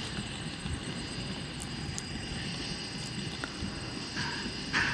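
Rogers K class steam locomotive No. 88 working a train towards the listener: a low steady rumble, with its exhaust chuffs coming through clearly near the end at about two a second.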